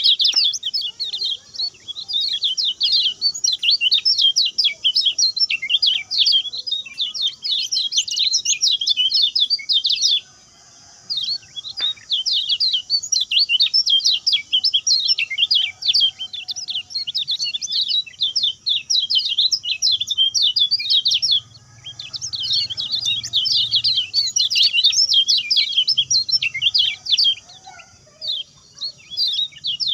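Kecial kuning (lemon-bellied white-eye) singing a fast, high, twittering song in dense runs of quick notes. The song breaks off briefly about ten seconds in and again around twenty-one seconds.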